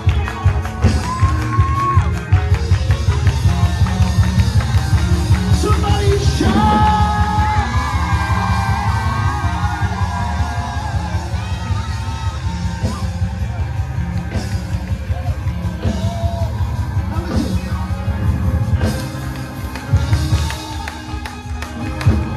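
Live praise music from a church band, with a keyboard in the mix and a fast steady beat. A voice sings and shouts over it through a microphone.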